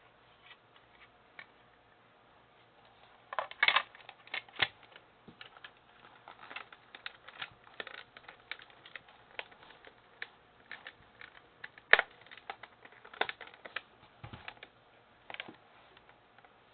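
Irregular plastic clicks and knocks from handling a toy transformation belt replica, with the sharpest knocks about four seconds in and again about twelve seconds in.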